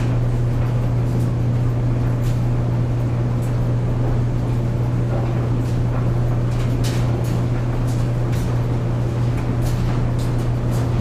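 Clothes dryer running with a steady low hum, with irregular light knocks as the load tumbles in the drum.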